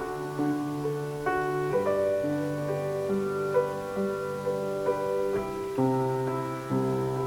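Keyboard playing a slow instrumental of held chords that change every second or so, with no singing.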